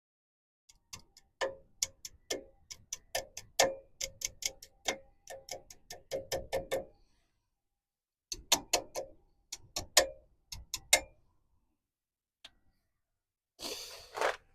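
Light metal-on-metal taps and clicks from hand tools working at the wheel hub, several a second with a short ring after each, in two runs of about six and three seconds. A brief rustle comes near the end.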